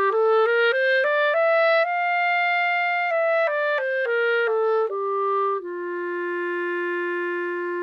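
Clarinet playing a one-octave scale with a firm, non-puffed-cheek embouchure. The notes climb step by step to a top note held for about a second, then step back down and settle on a long sustained low note for the last couple of seconds.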